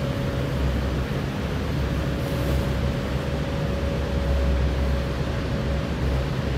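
Engine of a small boat under way, running steadily: a constant low rumble with a steady droning hum and a hiss of wind and water over it.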